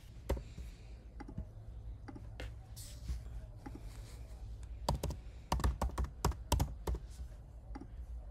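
Typing on a computer keyboard: scattered key clicks, then a quick run of keystrokes about five seconds in that lasts a couple of seconds.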